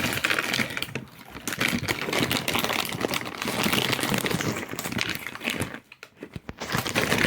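Packaging crinkling and rustling as a mystery box is handled and torn open to get at the squishy inside, a dense crackle of small clicks that pauses briefly about a second in and again near the end.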